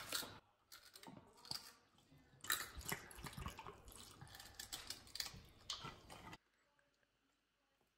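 Vinegar poured from a bottle into a large glass jar of chopped vegetables, faint irregular splashing and trickling with small clicks of the bottle, stopping suddenly about six seconds in.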